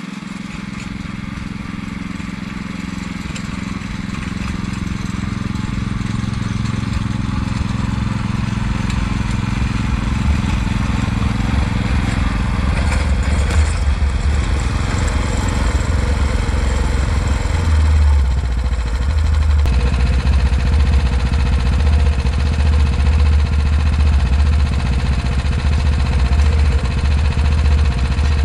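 Small petrol engine of a Hulk-1 walk-behind cultivator fitted with a plough, running steadily and growing louder as the machine comes closer. About two-thirds of the way in the sound changes abruptly to a steadier hum.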